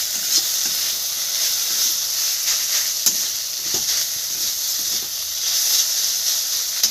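Shredded beetroot, cabbage and onion sizzling steadily in hot oil in a kadhai while a spatula stirs them, with light scrapes against the pan.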